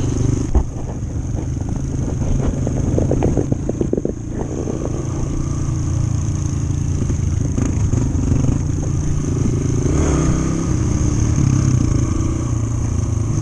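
Single-cylinder four-stroke dirt bike engine running steadily while riding a dirt road, heard from the bike itself. A sharp knock comes about half a second in, and a run of clatter from the bike over the road follows around three to four seconds in.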